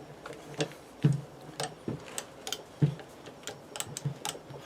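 Irregular light metallic clicks and knocks, one or two a second, from the vintage vise's removable machine-vise crank handle and lead screw being worked to open or close the jaws.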